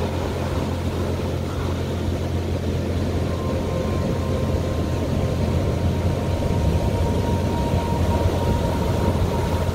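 Heavy ocean surf breaking and washing up a sandy beach: a steady, loud, low rushing rumble with no distinct separate crashes.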